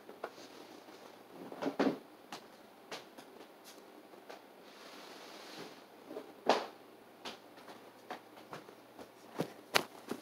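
Someone moving about and handling things: scattered knocks and thumps with soft rustling, the loudest thumps about two seconds and six and a half seconds in.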